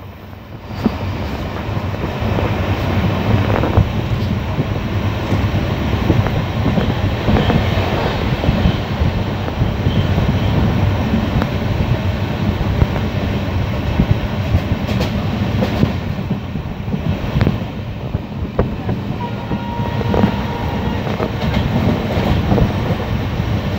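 Passenger train running along the track, heard from inside the coach: a steady rumble of wheels on rails with frequent clicks and knocks.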